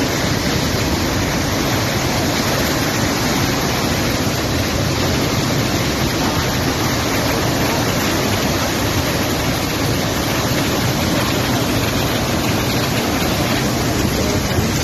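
Muddy flash-flood water rushing in a torrent: a loud, steady rush of water.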